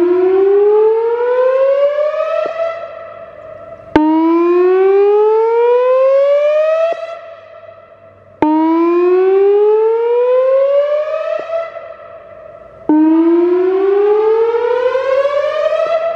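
Whelen Vortex "Finback" electronic tornado siren sounding its whoop signal in a weekly test: four rising whoops about four and a half seconds apart. Each begins abruptly, sweeps up in pitch over about three seconds, then drops back to a softer held tone until the next one starts.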